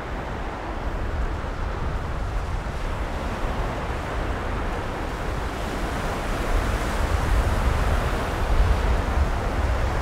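Surf breaking on a Gulf of Mexico beach, a steady wash of noise that swells louder about halfway through, with wind buffeting the microphone as a low rumble.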